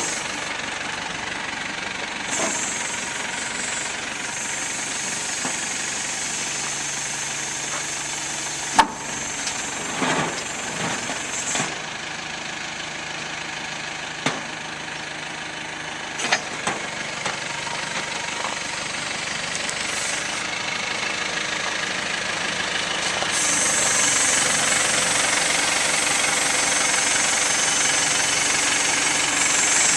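Perkins four-cylinder diesel of a Terex 760 loader backhoe running, with several sharp clanks a third to halfway through; the engine grows louder about three quarters of the way in.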